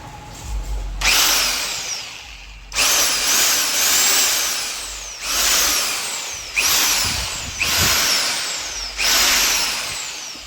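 Powerbilt 4-26 corded rotary hammer switched on and off in short bursts, about six times: each time the motor whines up to speed, then winds down as it is released.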